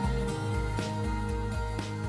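Background music: a gentle track with plucked guitar and a steady beat.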